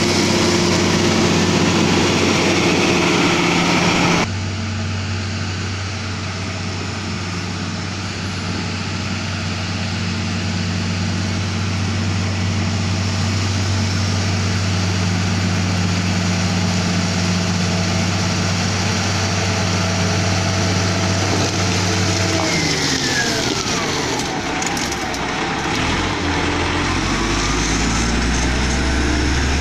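Komatsu GD555 motor grader's six-cylinder diesel engine running steadily, its sound changing abruptly about four seconds in. Near the end a whine falls and rises again, and the engine note settles lower.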